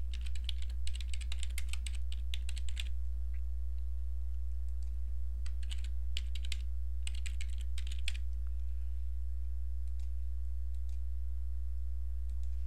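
Computer keyboard typing in two runs of quick keystrokes, one for the first couple of seconds and another from about five and a half to eight seconds in, with a few stray clicks after. A steady low hum runs underneath.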